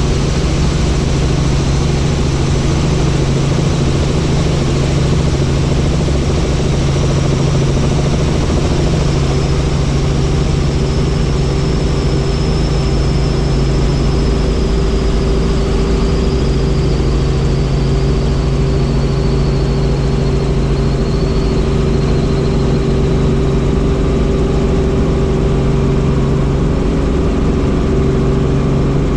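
Helicopter turbine engine and rotor running steadily, with a faint high whine that slowly falls in pitch over the stretch.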